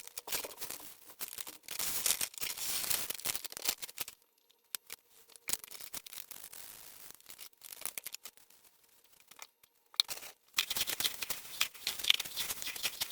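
Dry grain and seed chicken feed rustling and shifting in irregular bursts as it is mixed by hand. It is busy for the first few seconds, much quieter in the middle, and busy again near the end.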